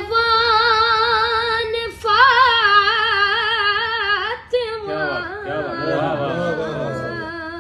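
A woman singing a devotional Urdu kalam, holding a long note with a wavering vibrato, breaking briefly about two seconds in to hold a second long note, then moving into a more ornamented, shifting melodic line after about four and a half seconds.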